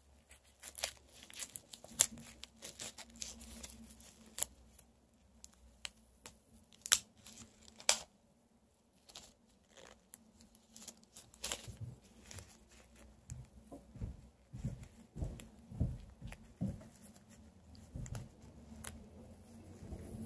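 Hands stretching and working deflated latex balloons, one being pushed inside another: irregular rubbery rustling with sharp little snaps, the loudest about 2 and 7 seconds in.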